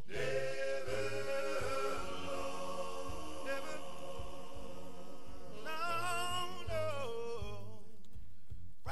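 Voices singing a hymn a cappella, with long held notes.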